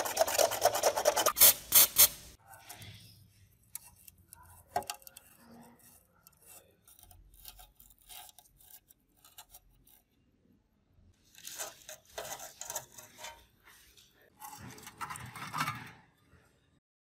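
Metal scraper rasping across the torch-blistered paint and rust on a mechanical scale's steel dial face in quick, loud strokes. Later come quieter metal clicks and two further short bouts of scraping as the parts are worked loose.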